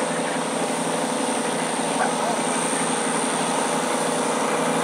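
Modified diesel garden pulling tractor running steadily under load as it drags the weight-transfer sled down the track, with a steady high whine above the engine.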